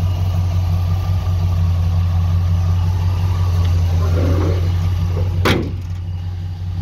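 A 1986 Ford F-200 pickup's engine idling steadily. About five and a half seconds in, the hood comes shut with a single knock, and the engine sounds a little quieter after it.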